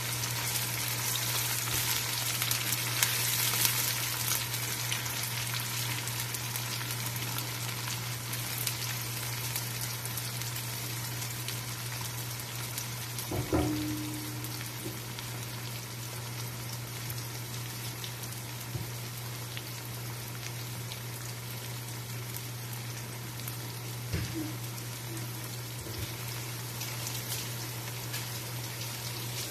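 Sliced onions sizzling steadily as they fry in hot oil in a wok, a little louder in the first few seconds while a silicone spatula stirs them. A single knock comes about halfway through, and a steady low hum runs underneath.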